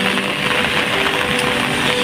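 Heavy rain hissing steadily, with low held tones underneath that change pitch every half second or so.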